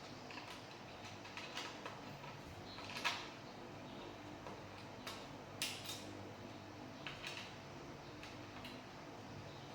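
Scattered light clicks and clinks of hard parts being handled while something is put together, with the sharpest knock about three seconds in and a few more near the middle, over a faint steady hum.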